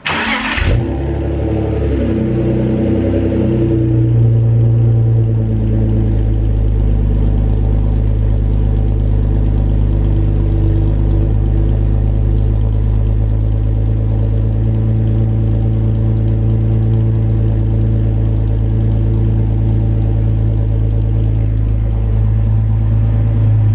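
BMW E46 323ci's 2.5-litre straight-six starting from cold through a muffler-deleted exhaust, a straight 3-inch pipe in place of the rear muffler. It cranks briefly and catches with a flare of revs that wavers for a few seconds, then settles into a steady, loud idle.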